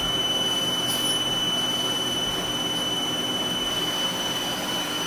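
Haas ST-20 CNC lathe running, its spindle turning steadily with a steady high whine while the turret tool machines a small spacer from round bar.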